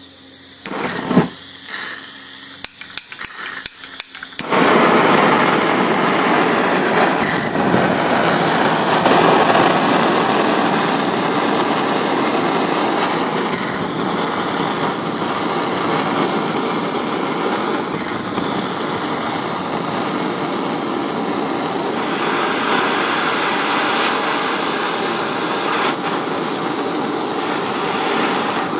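A handheld gas blowtorch: a quick string of clicks as it is lit, then, from about four and a half seconds in, the flame burning steadily with a loud rushing hiss while it heats a padlock to melt the plastic housing around its brass core.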